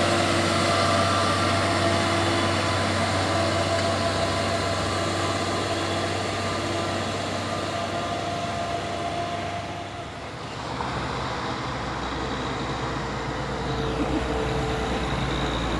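Diesel engine of a loaded heavy truck running steadily as it drives past, fading out about ten seconds in. A second, deeper truck diesel then comes in and grows louder as it approaches.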